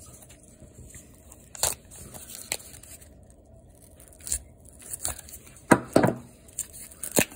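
Small utility knife blade slicing and scraping through packing tape on a cardboard card mailer, with paper rustling as it is handled. It comes as a handful of short scrapes and rips, loudest about six seconds in.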